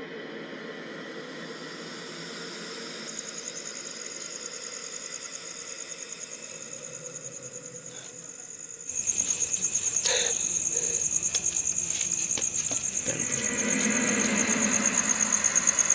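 Crickets chirping in a continuous high trill, which grows much louder about nine seconds in.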